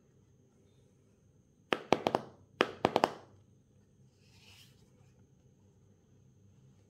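Two quick clusters of sharp clicks and taps, about a second apart, each of three or four hits, followed a second later by a brief soft rustle: hard items being handled during an unboxing.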